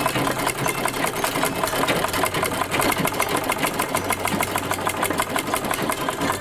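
Vintage black sewing machine stitching through fabric at a steady pace: a rapid, even clatter of the needle and mechanism.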